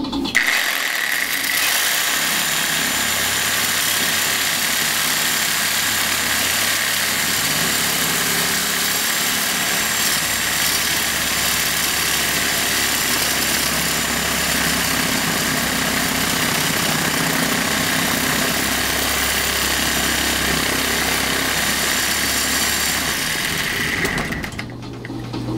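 Variable-speed power saw running at high speed with a dull bimetal blade, cutting into the steel shell of an air-conditioner compressor: a steady loud grinding with a high whine that stops suddenly near the end. The blade is struggling to get through the tough steel.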